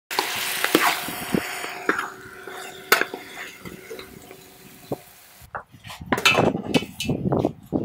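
Wooden spatula stirring chicken in a metal pan, knocking against it several times at irregular intervals, with a hiss in the first second or so. About five and a half seconds in, a denser run of rustling and knocks as raw chicken pieces are tipped from a foam tray into a pot of water.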